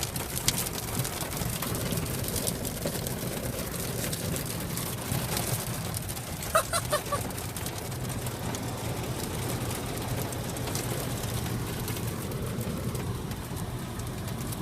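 Heavy rain beating on a car's roof and windows in a severe thunderstorm, many small hits over a steady hum of engine and road noise.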